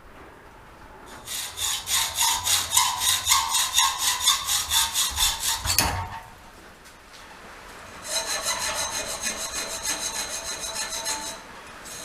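A hand tool rasping back and forth on a workpiece at about four strokes a second, in two runs of several seconds with a pause between: the spacer for the exhaust clamp being cut and shaped.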